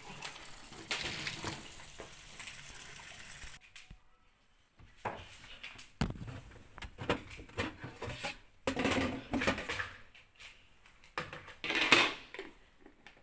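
Water rushing steadily for a few seconds, then cutting off suddenly. After that come scattered knocks and clatters of dishwasher parts being handled, loudest near the end.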